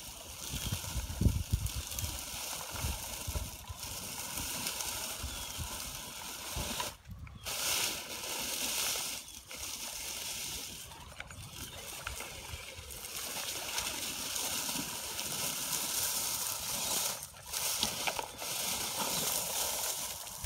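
Axial SCX10 RC crawler driving over dry leaves and dirt: a steady whirr from its electric motor and gears with the rustle and crunch of leaves under the tyres, cutting out briefly twice when the throttle is released.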